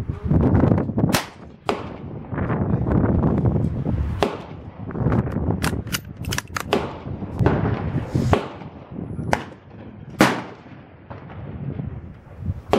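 Gunshots at an outdoor range, about a dozen sharp cracks, several in quick succession near the middle, over heavy wind rumble on the microphone.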